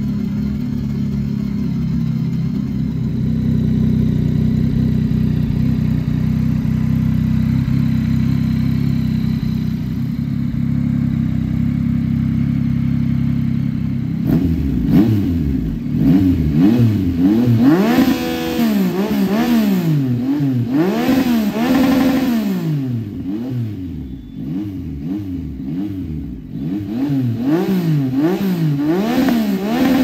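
2022 Yamaha XSR900's 890 cc inline-three, fitted with an aftermarket slip-on muffler, idling steadily, then from about halfway through revved in quick repeated throttle blips, the pitch rising and falling about once a second.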